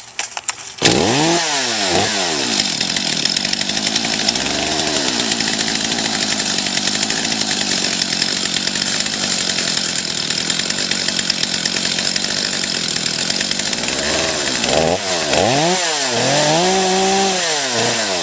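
Chainsaw engine cutting in suddenly about a second in and revving up and down, then running steadily at high speed. Near the end it is revved up and down again several times.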